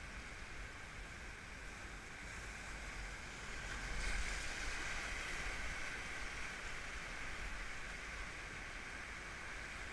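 Whitewater of a river rapid rushing around a raft, a steady roaring rush that grows louder about four seconds in as the raft runs into the rapid.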